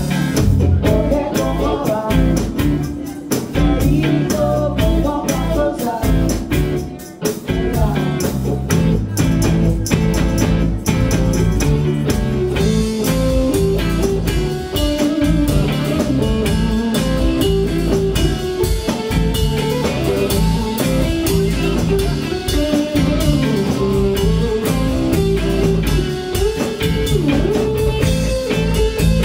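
Live band playing a groove: two electric guitars over a drum kit, loud and continuous.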